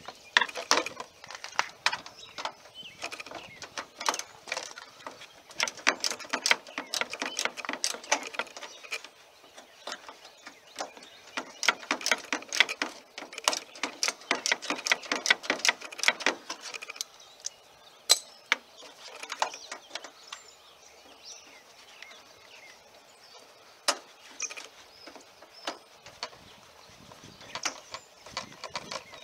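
Hand socket ratchet clicking in rapid runs as screws and a bolt are backed out of a truck's turn-signal housing and grille, followed by sparser clicks and knocks of parts being handled.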